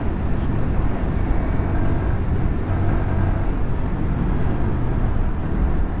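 Motorcycle running at a steady pace on the road, its engine and the road noise making a constant low rumble.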